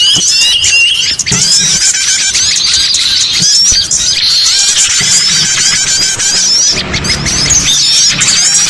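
Bird-lure (pikat) recording of many small songbirds calling at once: a dense, loud tangle of high, overlapping chirps and twitters, played to draw small birds such as flowerpeckers, prinias and sunbirds.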